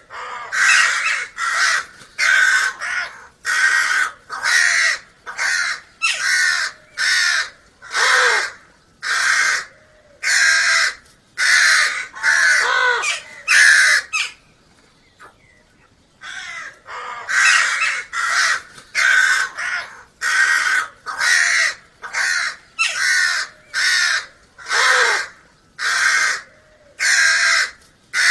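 Crows cawing: a long series of harsh caws, one or two a second, with a pause of about two seconds around the middle.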